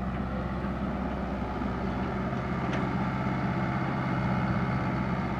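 Komatsu PC60-5 excavator's diesel engine running at a steady pace.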